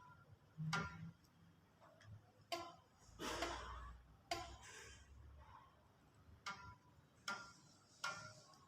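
A stretched rubber band twanged in the air, giving several quiet plucks about a second apart, each a short snap with a brief ring.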